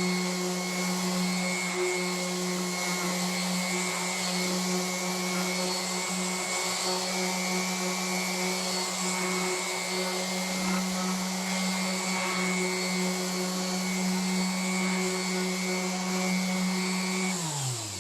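TACKLIFE random orbit sander with a 180-grit disc running steadily against a walnut cutting board: an even motor hum over sanding hiss. Near the end it is switched off and winds down, its pitch falling.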